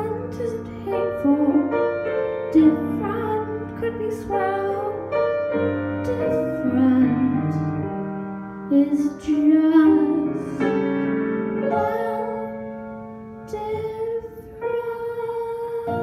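A boy singing a slow, gentle song into a microphone over piano accompaniment.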